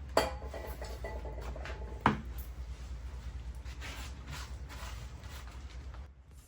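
Workshop handling sounds: two sharp knocks about two seconds apart, with lighter clinks and clatter between them as parts are handled and set aside.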